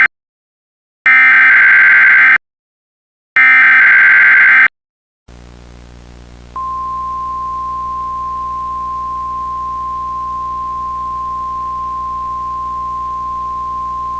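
Emergency Alert System SAME header: two data bursts, each just over a second long. A low hum with hiss follows, and from about six and a half seconds in a single steady alert tone near 1 kHz sounds, the NOAA Weather Radio 1050 Hz warning tone, announcing a test tornado warning.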